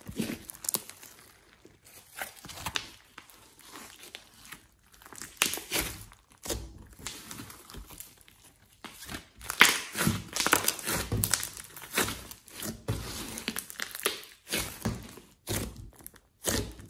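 Hands squeezing, stretching and pressing thick clay-mixed slime, giving many irregular short crackling pops, louder and busier from about halfway in.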